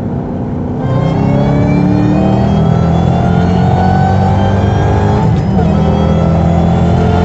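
Car engine accelerating hard under load, its pitch climbing steadily; about five seconds in the pitch drops briefly and then climbs again.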